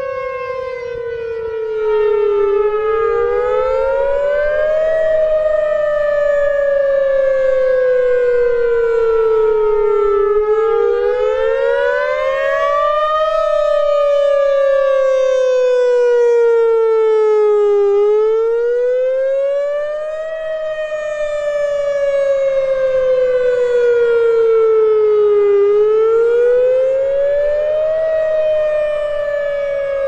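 Whelen WPS 3016 electronic outdoor warning siren sounding a wail tone during a siren test. The pitch climbs for about two and a half seconds, then falls for about five, over and over, as its speaker array turns.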